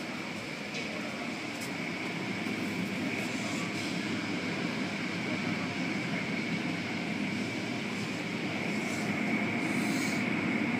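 Automatic tunnel car wash heard from inside the car: a steady rumble of cloth brushes and water spray working over the car, with a steady high whine running through it.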